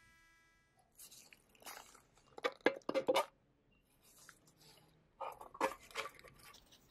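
Bare sandblasted metal first aid tin handled with gloved hands. The box is set down and its hinged lid is worked open, giving two bursts of sharp metallic clicks and scrapes.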